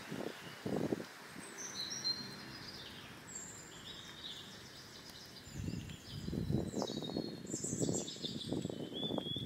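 Small birds chirping and trilling throughout. From about halfway in, louder rough splashing and rubbing as tomatoes are washed by hand under a running tap.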